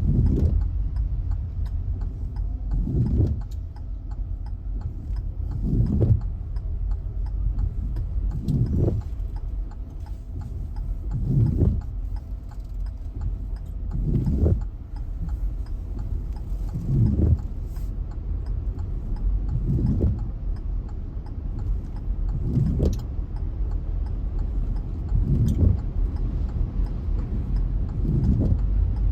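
Steady low rumble of a car's engine and road noise heard inside the cabin, with a windshield wiper swishing across the glass about every three seconds in heavy rain.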